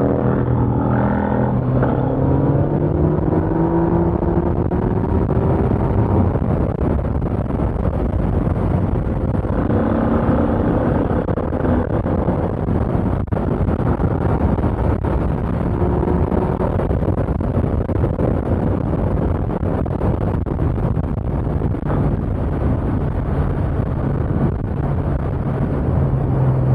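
Yamaha FZ-09's three-cylinder engine running at road speed under heavy wind rush. Its pitch rises as it accelerates over the first few seconds, then holds fairly steady.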